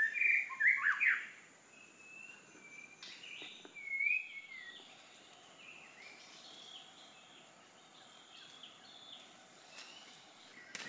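Wild birds calling with curving whistled notes, loudest in the first second, then fainter repeated whistles, over a faint steady high-pitched tone.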